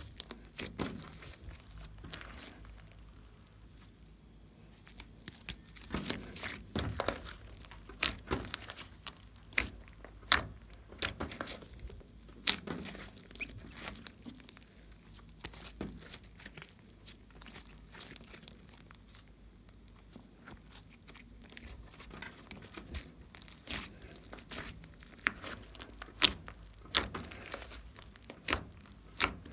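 Hands squeezing and stretching a large lump of glossy slime, giving sticky squishing with irregular sharp pops and clicks. There are a few quieter stretches in between.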